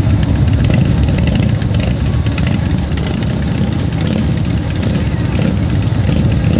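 Harley-Davidson V-twin motorcycle engines running at low speed, steady and loud.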